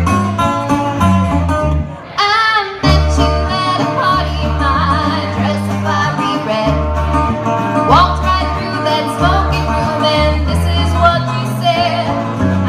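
Country song with banjo and guitar over a steady bass line, with a voice singing in places and a short break in the music about two seconds in.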